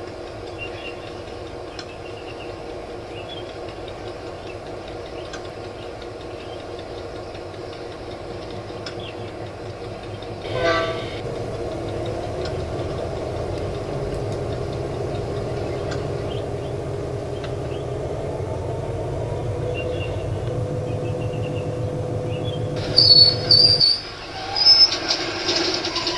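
Diesel locomotive engine sound running steadily, with a short horn blast about ten seconds in. The engine note strengthens as the train pulls away, and several loud horn blasts come near the end.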